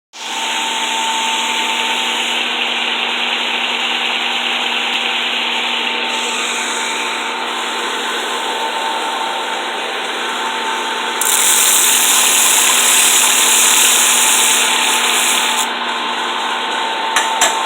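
Home-built 2x72 belt grinder running with a steady abrasive hiss and motor hum, getting louder and hissier for a few seconds in the middle as the belt works against something. A couple of quick clicks near the end.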